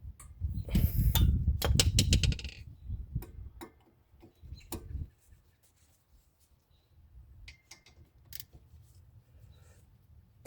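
Ratchet and socket clicking in a quick run of strokes as a brake caliper bolt is tightened, followed by a few scattered clinks of metal tools.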